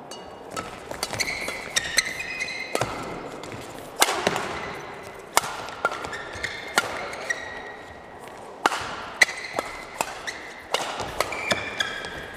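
Badminton doubles rally: a quick, irregular series of sharp racket strikes on the shuttlecock, with short high squeaks of shoe soles on the court between them.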